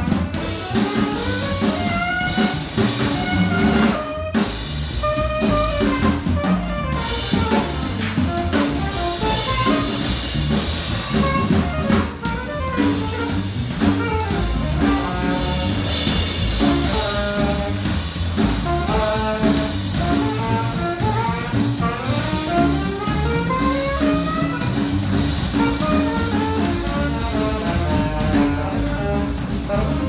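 Jazz quartet playing live: alto saxophone and bass clarinet lines over double bass and drum kit.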